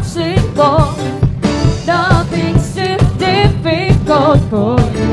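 A woman sings lead in a live worship band, her voice wavering with vibrato, over a steady drum beat.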